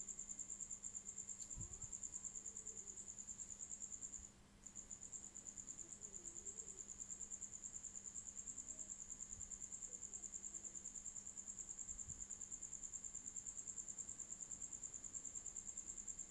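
Insect trilling steadily, a high, fast-pulsing trill that breaks off briefly about four seconds in.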